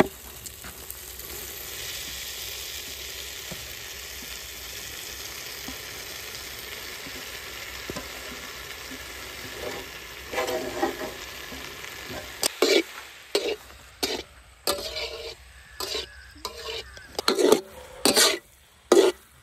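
Chopped boiled eggs frying in a sizzling tomato-onion masala in a kadai, with a steady hiss. From about twelve seconds in, a metal ladle stirs and scrapes the pan in quick, irregular strokes.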